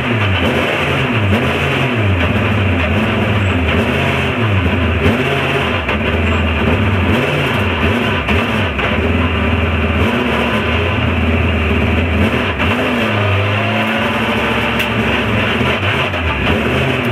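Alfa Romeo 156 S2000 touring car's engine, heard from inside the cockpit, running at low speed with the revs rising and falling in short blips, then holding steadier for a stretch.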